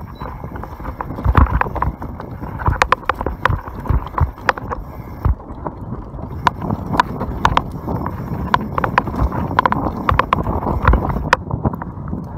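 YT Capra full-suspension enduro mountain bike descending a dirt and rock trail: tyres rolling over the ground with frequent sharp clacks and rattles of the bike over bumps.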